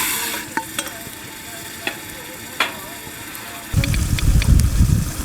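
Liver frying in a pan with a steady sizzle, with a few sharp clicks from a utensil stirring against the pan. About two-thirds of the way in, a loud low rumble starts and drowns the sizzle.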